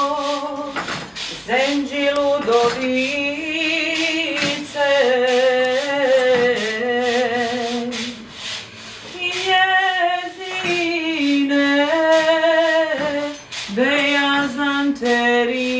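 A woman singing a slow melody with vibrato, holding long notes in phrases with brief breaks for breath.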